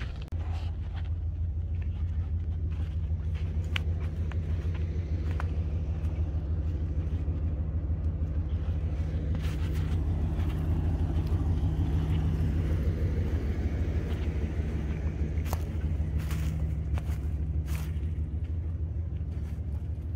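A steady low rumble with a constant deep hum in it, swelling a little around the middle, with scattered light clicks.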